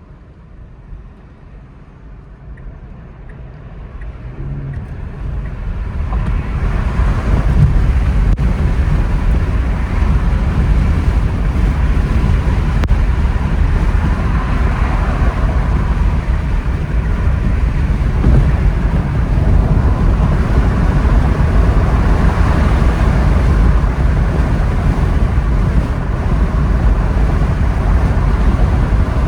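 Wind rushing in through the open windows, with tyre and road noise, of a Tesla under way. The noise swells over the first six seconds as the car picks up speed, then holds as a loud, steady rush.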